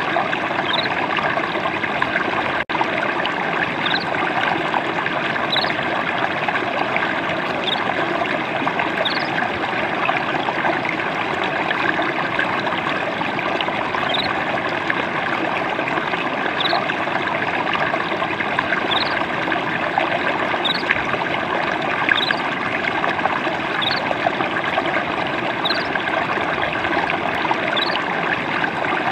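Water trickling and splashing steadily, with short faint high rising notes every second or two. There is a split-second dropout about two and a half seconds in.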